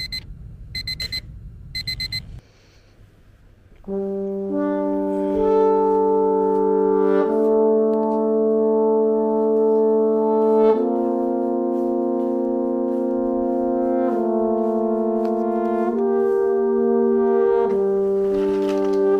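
An alarm beeping in three short bursts, then, after a short pause, slow background music of sustained, held chords that shift every few seconds.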